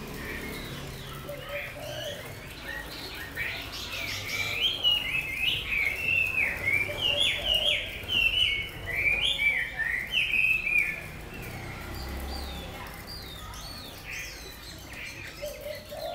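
Caged songbird singing a fast run of loud, varied whistled notes that slide up and down. The song is softer at first, strongest in the middle stretch, and drops back to quieter notes near the end.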